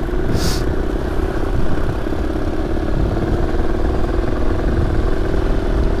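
Trail motorbike engine running at a steady pitch while riding, with low rumble and a brief hiss about half a second in.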